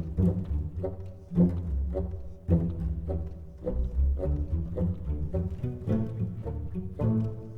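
Instrumental music in a low register: deep, string-like notes change every half second or so.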